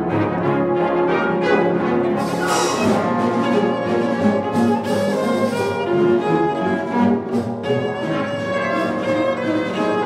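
Solo cello and full symphony orchestra playing a cello concerto passage, with strings and brass, in a live concert recording.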